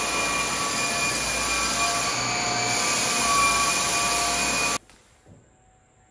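Motor-driven floor-refinishing machine running loud and steady: a rushing noise with a few steady whining tones on top. It cuts off abruptly near the end, leaving faint room tone.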